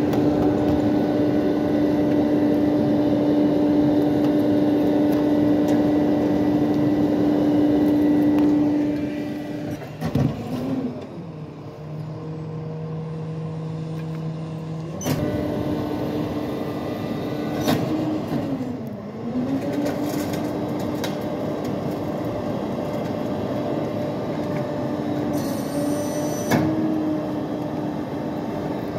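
Rear-loader garbage truck (International chassis, New Way packer body) running with its engine held at raised revs, a steady hum, while the packer works. About ten seconds in the revs drop to a lower idle. About fifteen seconds in they rise again, with a brief dip and recovery a few seconds later and a sharp knock near the end.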